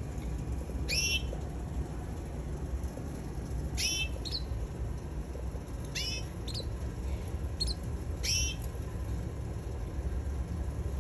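Canary giving short chirp calls, each a quick downward-sweeping note, about five of them with a couple of fainter ones between, stopping about three-quarters of the way through, over a steady low rumble.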